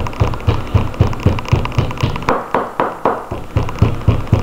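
Steak being pounded with a green glass bottle on a wooden cutting board to tenderise it: a fast, steady run of blows, about three to four a second, the bottle striking through the meat onto the board.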